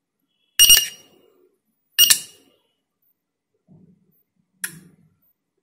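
Two short beeps from the controller board's piezo buzzer, about a second and a half apart, then a fainter click near the end.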